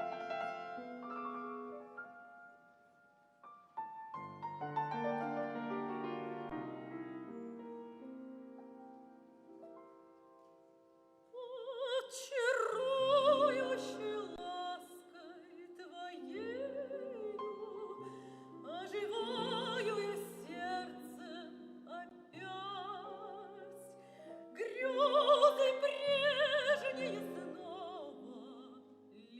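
Solo piano playing an introduction; about eleven seconds in, a classically trained voice begins singing a Russian romance with vibrato over the piano accompaniment, swelling to its loudest phrase near the end.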